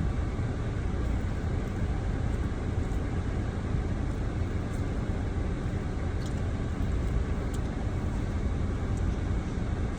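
Steady low rumble inside a car, the car's idling engine.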